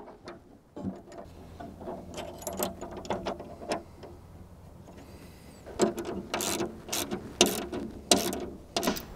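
Hand ratchet clicking, mixed with metal knocks from the tailgate latch hardware. It comes in two runs of irregular clicks, the second louder, starting about six seconds in.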